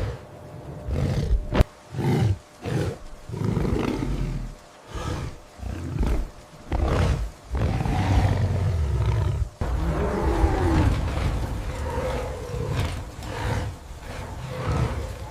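Repeated lion-like roars and growls in bursts of about a second, with a sharp crack about one and a half seconds in.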